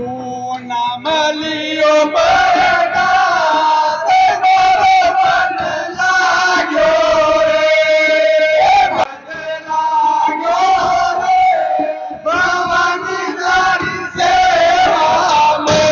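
Voices singing a jas, a devotional song to the mother goddess, in long held notes that slide up and down, with a short break in the singing about nine seconds in.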